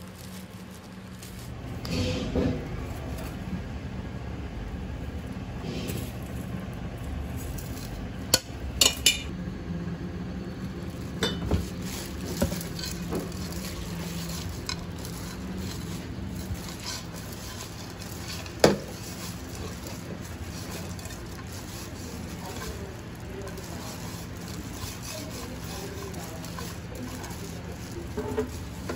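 Gloved hands mixing and tossing side dishes in metal pans: seasoned radish strips in a steel tray, then bean sprouts in a pan. A few sharp clinks of metal pans and utensils stand out about nine seconds in and again near nineteen, over a steady low hum.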